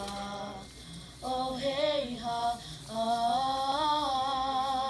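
A woman's voice singing a slow song melody over light music, in a few phrases with short breaks and a long held note in the second half.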